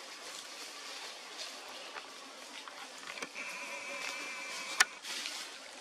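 Forest background hiss, with a high, slightly wavering tone held for about a second and a half past the middle. A single sharp click near the end is the loudest sound.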